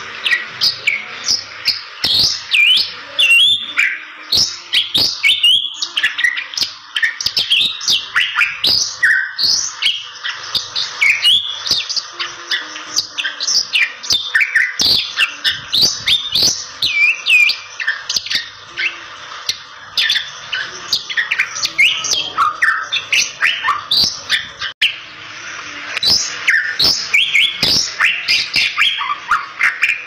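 Bali myna (Bali starling) singing vigorously: a rapid, unbroken stream of quick whistles and chirps, sliding up and down, mixed with sharp clicks, with a brief pause about 25 seconds in.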